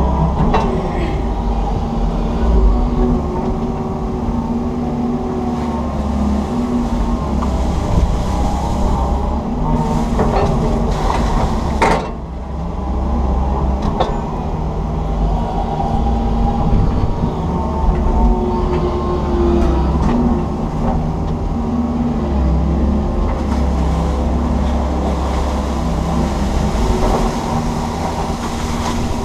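Komatsu PC160 excavator's diesel engine and hydraulics working steadily as the boom and bucket dig, heard from inside the cab. A few sharp knocks come about ten to twelve seconds in.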